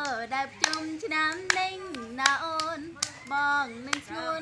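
A woman singing a simple tune in steady held notes while hands clap along about once every three quarters of a second.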